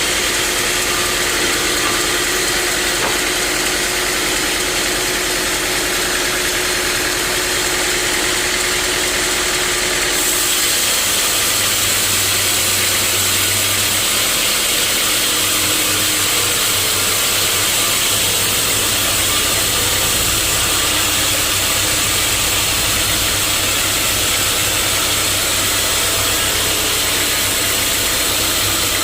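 Sawmill saw machinery running steadily, with a change in its sound about ten seconds in as a low hum comes in.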